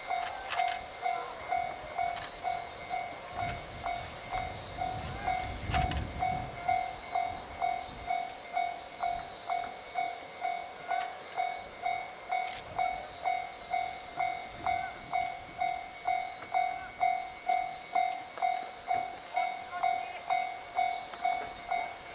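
Japanese railway level-crossing warning bell ringing, a steady electronic ding repeating about twice a second: the crossing is active, signalling an approaching train.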